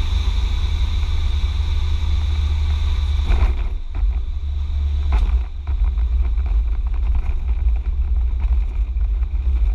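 Ikarus C42 microlight's engine and propeller running, heard from inside the cockpit with a heavy low rumble from wind on the microphone. About three and a half seconds in, the higher part of the sound drops away, and there are two brief knocks, one then and one a couple of seconds later.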